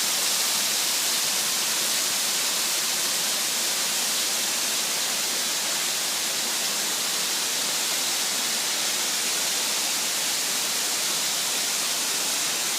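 A large waterfall's steady rush of falling water: an even, unbroken hiss that stays the same throughout.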